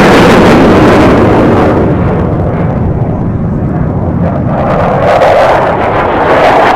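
Loud jet noise from an F-16 Fighting Falcon flying a display pass. The hiss at the top dulls and the sound fades over the first few seconds as the jet climbs away. It swells again after about five seconds.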